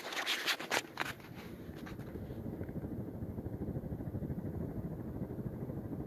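Airflow from a 52-inch Hunter Palatine ceiling fan running on high speed, blowing across the phone's microphone as a steady low wind rumble. It follows about a second of handling rustle as the phone is moved.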